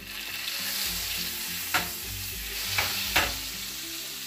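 Butter sizzling and foaming in a hot nonstick frying pan on an electric coil burner, with three sharp knocks against the pan in the second half.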